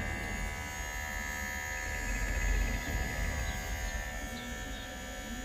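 Kemei 1998 cordless hair clipper running, a steady electric buzz from its blade motor.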